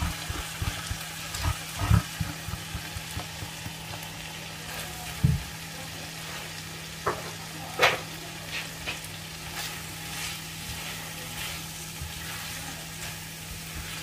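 Skipjack tuna cooking in spice paste in a pan, sizzling steadily as the last of the added water cooks off, while a utensil stirs it and knocks against the pan, several times in the first few seconds and again near the middle.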